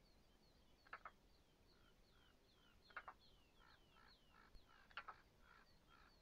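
Faint birdsong: a short falling note repeated about three times a second. A harsher doubled call comes about every two seconds, and a run of lower notes starts about halfway through.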